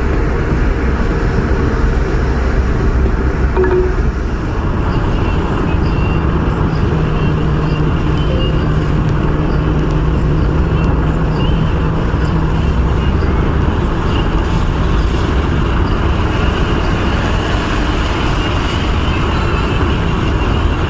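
A moving car's steady road and tyre noise with a low engine hum, unbroken throughout.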